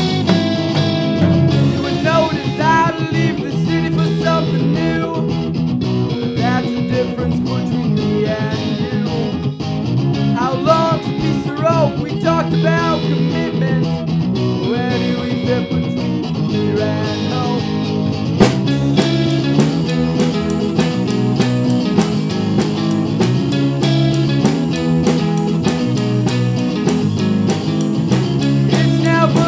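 Instrumental section of a rock song by a band with electric guitars, bass and drums: a lead guitar line with bending notes over a steady chord backing. About eighteen seconds in the drums come in harder with fast, steady cymbal hits.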